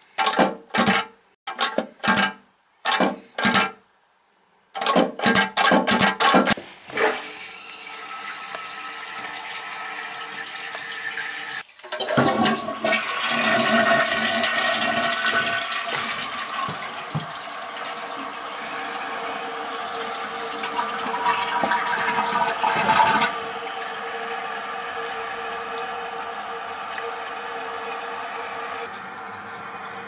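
A run of clattering knocks, then a toilet tank with a ball-float fill valve filling with rushing, hissing water. About twelve seconds in the toilet is flushed and the water rushes and refills. The flush tests the newly refitted tank for leaks at its bolts.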